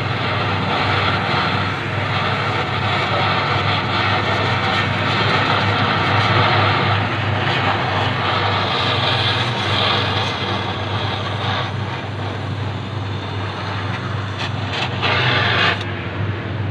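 Gas welding torch hissing steadily as the silencer is welded onto the exhaust pipe, over a steady low hum, with a brief louder patch near the end.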